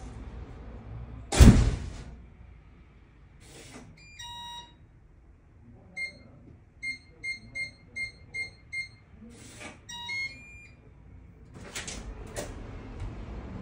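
Digital keypad door lock being opened. After a loud thump, the keypad wakes with a short beep tune, about seven button presses each give a short beep, and another short beep tune plays as the lock opens, followed by the bolt and handle clicking.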